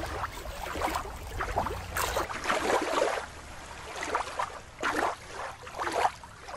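Water sloshing and lapping in uneven splashes.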